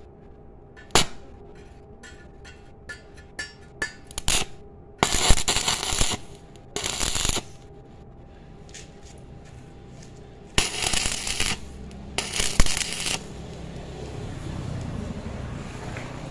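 Stick welder: a string of sharp clicks as the electrode is scratched on the thin square steel tube, then the arc crackling in four short bursts of about half a second to a second each, laying tack welds across the gap.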